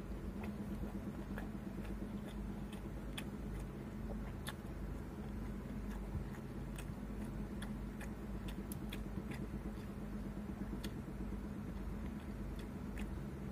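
Eating by hand: irregular small clicks and smacks of chewing and of fingers picking rice off a plastic plate, over a steady low hum.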